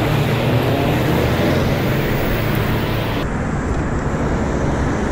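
Steady road traffic noise, dense and continuous, with a low rumble; the higher hiss drops off abruptly about three seconds in.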